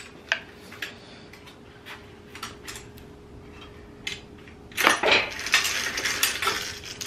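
Cut bicycle chain being pulled off the sprockets and derailleur. Its steel links click a few times, then rattle and clink for about two seconds near the end.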